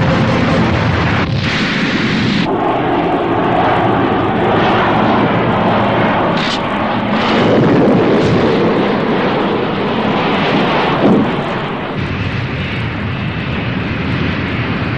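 Jet fighter engine noise from an animated dogfight: a steady rush of jet sound with explosions breaking in a few times.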